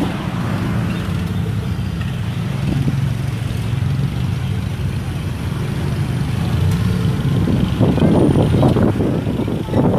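Vehicle engine running steadily at a low pitch, with a louder, rougher stretch near the end.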